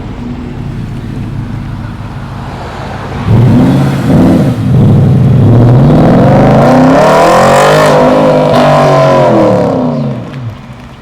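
A car engine running low and steady, then about three seconds in it revs up loudly, dips briefly and accelerates hard, its pitch climbing and then falling as it goes by, fading near the end.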